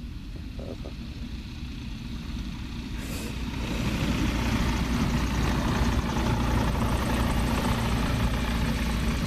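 Rotax 912S flat-four engine and propeller of an Allegro 2000 ultralight running at low taxi power as the plane taxis on grass. The sound grows steadily louder over the first three or four seconds as the aircraft comes up close, then holds steady.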